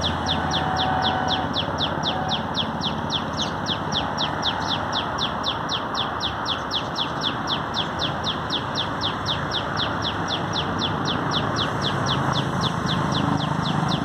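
Common tailorbird calling: one short, high, falling note repeated evenly, about four times a second, over and over without a break.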